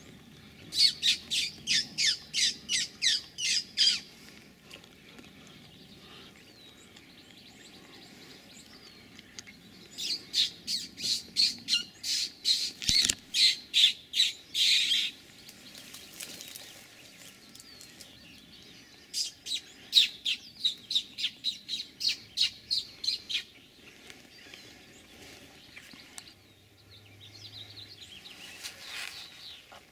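A bird calling in three bouts of rapid, harsh notes, about four a second, each bout lasting a few seconds, with quiet outdoor background between them.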